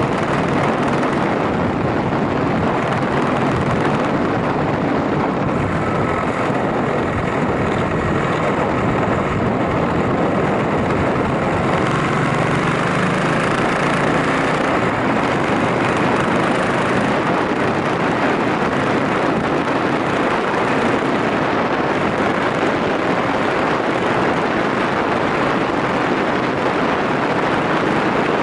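Yamaha SRX400 single-cylinder motorcycle running at a steady road speed, its engine under a constant rush of wind and road noise.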